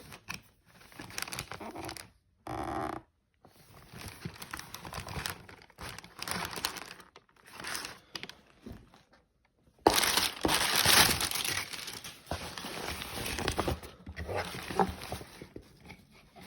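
Packaging crinkling and rustling in irregular bursts as the boots are unboxed, busiest and loudest in the second half.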